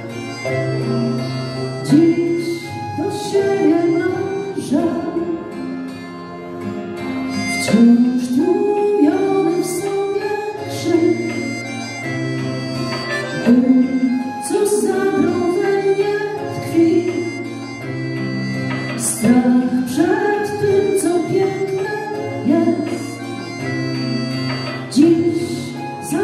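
Live music from a folk ensemble, instruments playing a tune with held, shifting notes.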